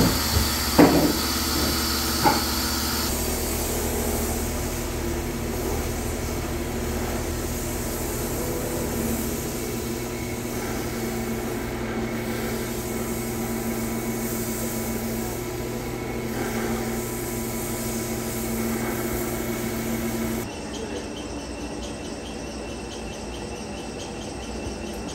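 A CNC wood lathe turning a baseball bat, with its dust collector running: a steady machine hum and hiss. A few sharp knocks come in the first two seconds, and a higher hiss stops about three seconds in. About twenty seconds in, the hum gives way to a quieter, different shop background.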